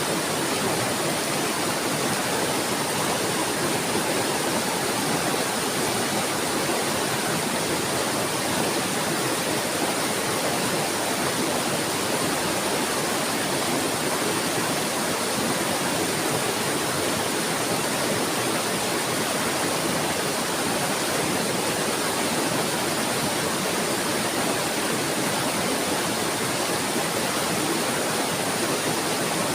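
Flowing water babbling and rushing in a steady, unbroken wash, with no bird calls over it.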